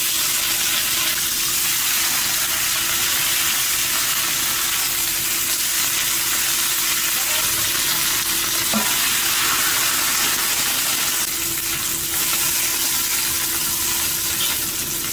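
Sliced cabbage, green beans and carrot hit hot oil in a wok and sizzle at once, a loud steady frying hiss. They are stir-fried with a metal spatula and ladle.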